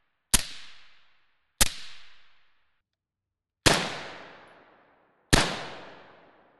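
Suppressed 5.56 AR rifle with an 11.5-inch barrel firing four shots through an AB Suppressor A-10 Warthog. The shots come at uneven spacing over about five seconds. Each is a sharp report followed by a fading echo lasting about a second.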